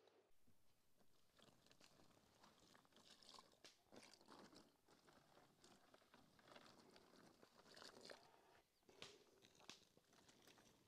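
Near silence, with faint, irregular crackling and ticking.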